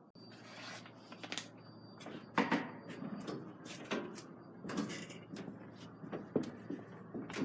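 A dozen or so irregular knocks and clunks, like doors, fittings or footsteps, over a steady low hum and a faint high whine.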